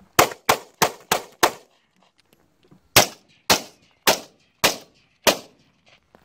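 A string of gunshots: five quick pistol shots about a third of a second apart, then, after a pause of about a second and a half, five AR-15 rifle shots about half a second apart.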